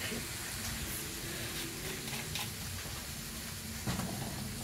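Chicken pieces sautéing in a wok over a gas burner: a steady sizzling hiss, with a few faint clicks.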